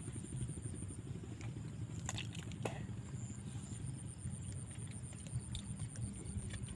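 A low engine rumble, steady throughout, with a few light clicks and taps.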